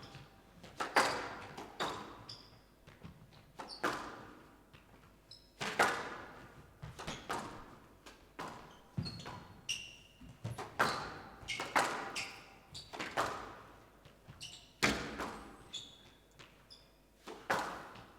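Squash rally: the ball cracks off rackets and court walls at irregular intervals of about a second, each hit echoing in a large hall, with short high squeaks of court shoes between shots.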